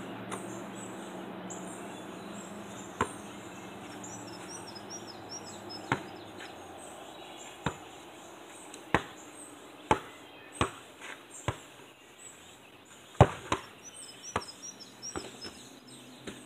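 A basketball bouncing on hard ground: a dozen or so sharp thuds a second or more apart, with a run of bounces coming quicker and quicker as the ball settles about nine to twelve seconds in. Birds chirp in two short spells.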